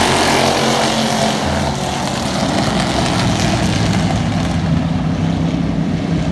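Stock car race engines running hard as a pack of cars passes close by. The sharp upper edge of the sound drops away about four and a half seconds in as the cars pull away down the track, leaving a steady lower engine drone.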